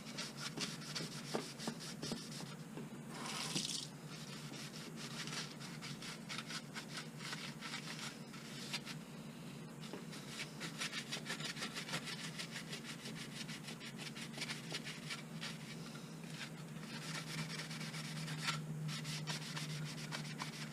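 Green scrubbing pad rubbing soapy water over a plastic LED light bar lens in quick, repeated back-and-forth strokes.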